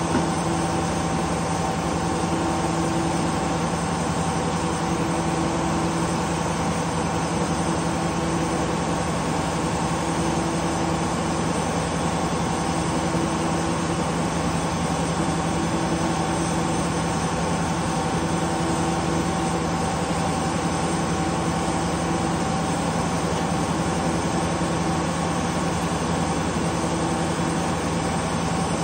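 Two-stroke Detroit Diesel engine running steadily, driving a large circular sawmill blade that spins throughout. A hum swells and fades every two to three seconds.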